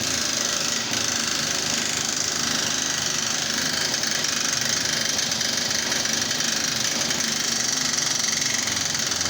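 Power impact wrench running steadily with rapid hammering, undoing a bolt on the car's rear suspension so the spring can come out.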